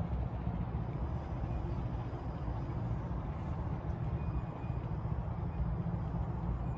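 Miniature railway train, a diesel-powered E2 tank engine body shell hauling passenger carriages, running past at a distance: a steady low rumble.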